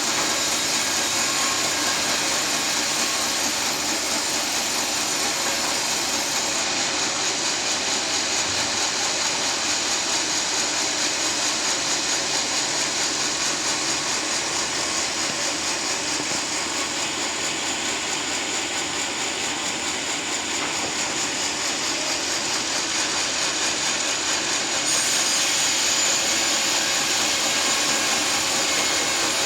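A sawmill runs steadily with its blade sawing a teak log into planks. The highest hiss fades about seven seconds in and comes back near the end, with the sound a little louder there.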